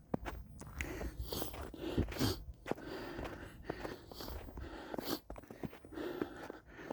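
Footsteps crunching in snow at a walking pace, with some low rumble.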